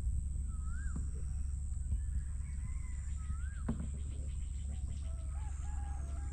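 Birds calling: short whistled notes that rise and then drop away, heard several times, and a run of stepped notes from about five seconds in. A steady low rumble runs underneath.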